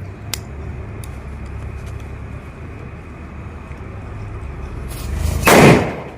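Steady background noise, then a firecracker goes off with a single loud burst about five and a half seconds in, dying away within half a second.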